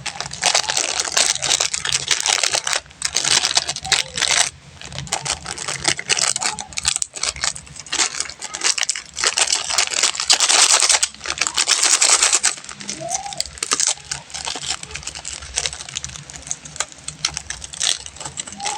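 Candy wrappers being crinkled and torn open by hand: a dense crackling rustle full of sharp clicks, coming in bursts with brief pauses.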